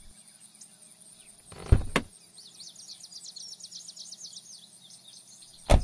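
A car door shutting with a thump and a click, then a second loud thump near the end, over quiet country ambience. In between there is a run of rapid, high, rising chirps.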